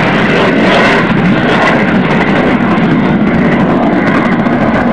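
Jet aircraft flying low overhead: loud, steady jet engine noise.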